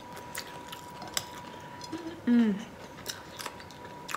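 Close-miked chewing of shell-on shrimp: scattered sharp crunching clicks as the shells are bitten, with a short falling 'mm' hum about two seconds in. A faint steady high tone runs underneath.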